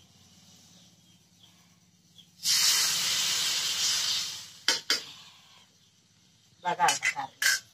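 Water poured into a hot kadhai of frying vegetables hits the hot oil and pan and hisses loudly as it turns to steam, for about two seconds. About half a second after the hiss dies, there are two sharp clicks of the spoon against the pan.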